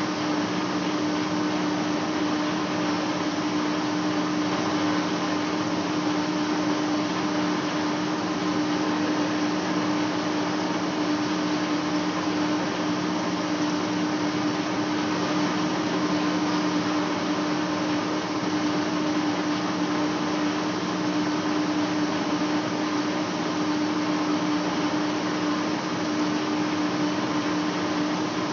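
Large lathe running steadily as it turns a big metal flange for facing: a constant machine hum with two steady low tones over an even hiss.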